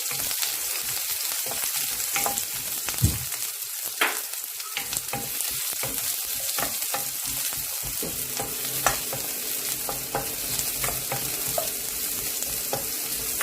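Chopped onions sizzling steadily in hot olive oil in a frying pan, with a few sharp knocks about three and four seconds in and again near nine seconds.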